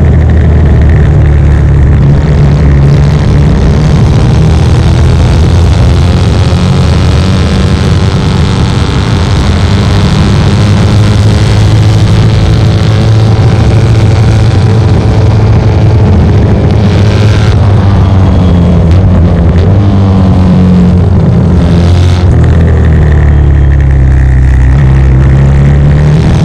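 1972 short-stroke Norton 750 Commando's parallel-twin engine running hard under racing load, heard from on board with wind rush. Its revs dip and climb again a few times in the second half as the bike goes through corners.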